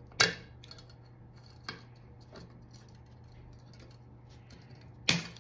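Scissors snipping off the ends of plastic zip ties: a sharp snip just after the start, two fainter ones in the middle, and another sharp snip near the end, over a low steady hum.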